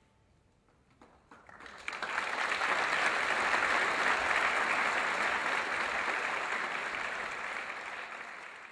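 Audience applauding in an auditorium: a few scattered claps about a second in swell into full, steady applause within another second and hold, easing slightly near the end.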